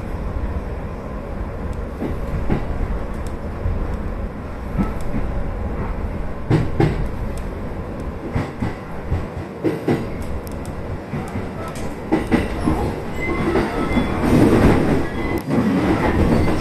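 Yokosuka Line electric train running, heard from inside the leading car: a steady low rumble with irregular clicks and clacks of the wheels over rail joints. Over the last few seconds the wheels squeal in short high bursts and the sound grows louder.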